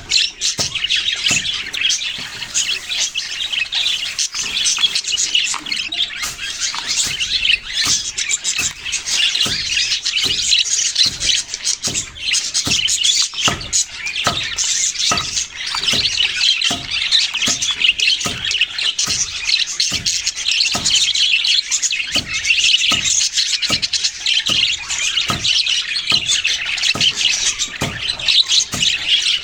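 Budgerigars chirping and chattering without a break in a dense, overlapping stream of high chirps, with frequent short clicks mixed in.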